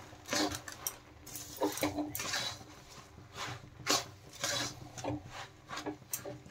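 Steel spoon stirring puffed rice coated in hot jaggery syrup in a metal kadai, scraping against the pan and tossing the crisp grains in irregular strokes about twice a second.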